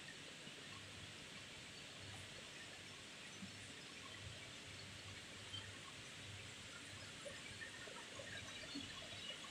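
Faint, steady background hiss of a large power-plant turbine hall, with a few faint scattered chirps and clicks.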